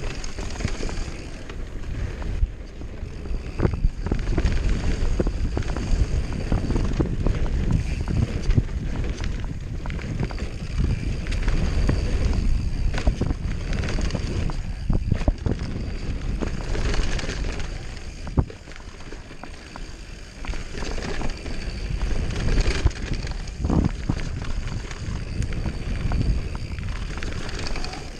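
Downhill mountain bike descending a dirt trail at speed: rumbling tyres on dirt and wind on the microphone, with frequent sharp clicks and knocks from the bike rattling over bumps. The noise eases briefly about two-thirds of the way through, then builds again.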